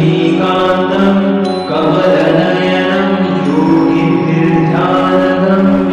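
Background music: a slow devotional chant, a voice holding long notes that shift in pitch one after another.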